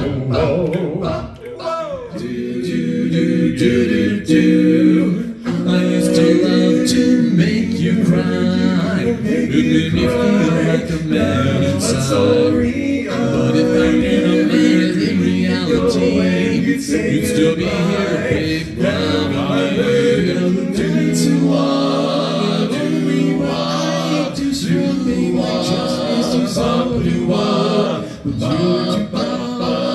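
Five-man male a cappella group singing a song in close harmony, voices only with no instruments, with short sharp percussive sounds dotted through the singing.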